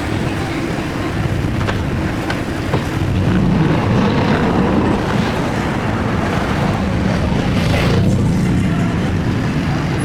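1966 Triumph Spitfire's 1147cc four-cylinder engine running as the car drives along, with wind rushing past the open car. The engine note gets louder about three seconds in.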